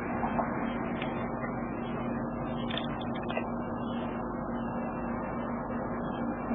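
A steady low hum over a constant background rush, with a few faint brief clicks.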